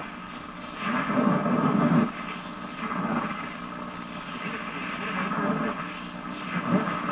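A restored 1936 Silvertone 4569 tube radio playing an AM broadcast-band station through its speaker: indistinct broadcast voices over a steady hiss of background noise.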